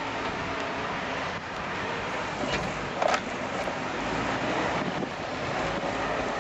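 Diesel engine of heavy construction machinery running steadily, with wind on the microphone, and a single sharp knock about three seconds in.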